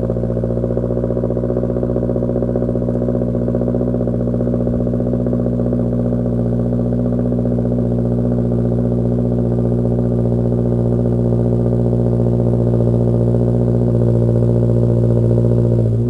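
Toyota GR86's 2.4-litre flat-four engine and aftermarket exhaust running at a steady, constant engine speed, like a cruise, with a low exhaust note that holds one pitch and grows slightly louder near the end.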